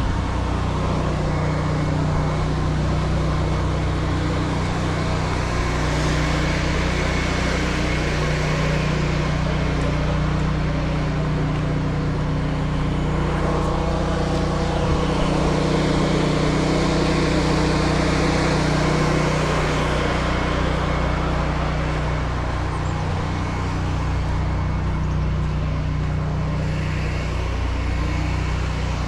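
Pressure washer running steadily, its engine humming under the hiss of the water jet on a surface. The hiss swells through the middle and eases off near the end.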